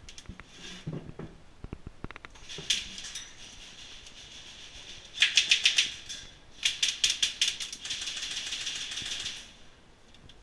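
Airsoft electric rifles firing rapid full-auto bursts of BBs: a few shots about three seconds in, a short burst about five seconds in, then longer bursts until near the end.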